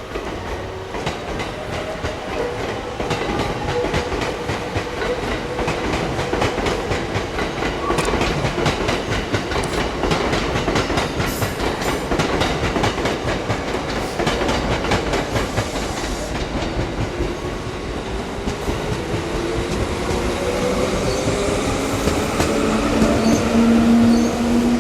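Electric passenger train pulling out of a station after the doors close, its wheels clattering rapidly over the rail joints. In the last few seconds a rising motor whine joins in and grows louder.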